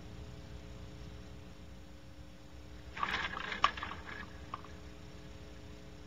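Steady electrical hum from the nest camera's microphone, broken about three seconds in by a brief scratchy rustle, under a second long with one sharp tick, as the barn owl moves off its perch.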